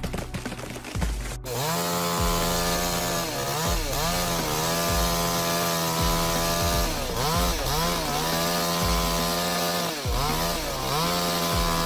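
After about a second and a half of rapid clicking, a two-stroke chainsaw runs at high revs. Its pitch drops and picks back up about six times as the chain bites into the wood and the engine bogs under load.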